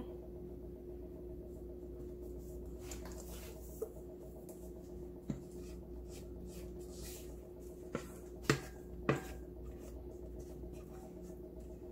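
Cornbread batter being tipped and scraped out of a stainless steel mixer bowl into a glass baking dish: faint rubbing and scraping with a few light knocks of the bowl against the dish, the sharpest two late on, over a steady low hum.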